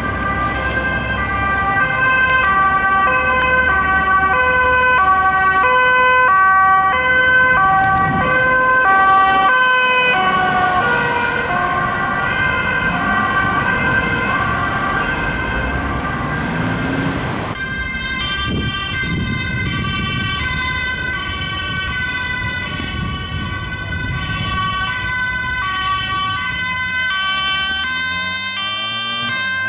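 Two-tone sirens of Dutch police vehicles, alternating between a high and a low note, over road and engine noise. The siren pattern changes about two-thirds of the way through. Near the end a motorcycle engine rises in pitch as it passes.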